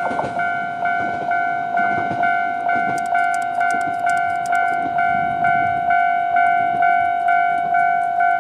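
Japanese railway level crossing's electronic warning alarm ringing in an even, repeating ding of a little over two strikes a second, then cutting off suddenly near the end as the crossing clears behind the train. The rumble of the diesel railcar that has just passed fades beneath it at first.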